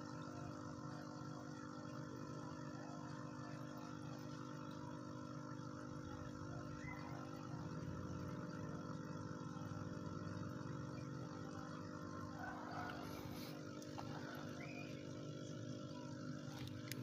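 Aquarium air pump humming steadily while air bubbles up through the tank water.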